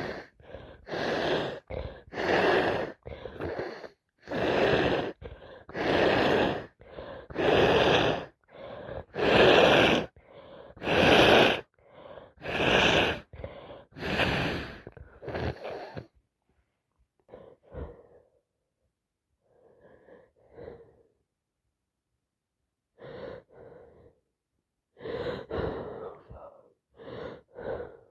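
A woman with a heavy head cold gasping in sharp build-up breaths and sneezing, a long run of loud bursts one after another. About sixteen seconds in they thin out into fewer, quieter breaths.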